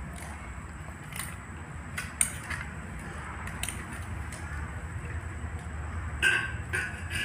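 A hand squeezing and mashing chopped green chillies, onion and garlic in tamarind water in a stainless steel bowl: soft wet squishing with several light clicks of fingers against the steel.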